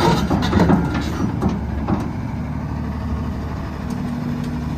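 Excavator engine sound running steadily at a low pitch, with a few clicks and knocks over the first two seconds.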